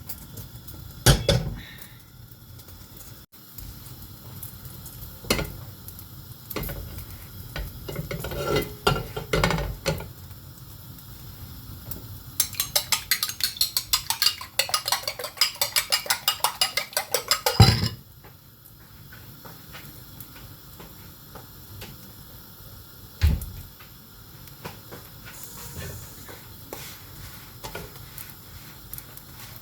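Kitchen utensils and dishes clinking and knocking during food preparation. From about twelve to eighteen seconds in there is a fast, even run of sharp metal-on-bowl strokes, about five a second, like a fork or whisk beating in a bowl.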